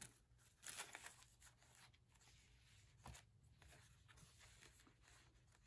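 Faint paper rustles as the pages of a thick handmade paper journal are turned by hand, with a brief rustle about a second in and another about three seconds in; otherwise near silence.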